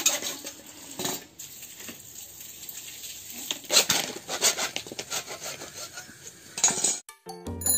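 Hacksaw cutting through 25 mm PVC electrical conduit: a run of rasping saw strokes with uneven scrapes, stopping abruptly about seven seconds in, with music starting just after.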